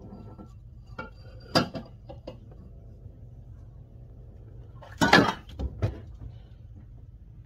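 A few light clinks of dishes and kitchenware on a counter, then a louder clattering knock about five seconds in followed by two smaller knocks, over a steady low hum.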